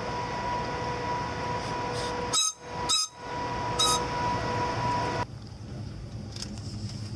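Passenger train noise during a slow reverse move: a steady hum with a constant tone, broken by three short, high squeaks about two and a half, three and four seconds in. The hum cuts off abruptly about five seconds in.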